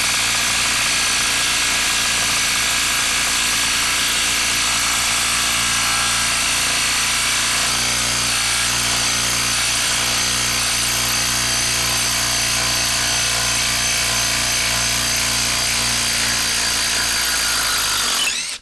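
Hilti brushless cordless impact driver hammering continuously as it drives a lag screw into a wooden log through a socket on a hex adapter. It stops abruptly at the very end.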